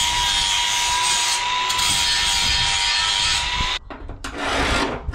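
Cordless angle grinder running against the rusted, thin sheet steel of a tractor dash panel: a steady whine over grinding noise that stops abruptly about four seconds in, followed by a short scraping noise.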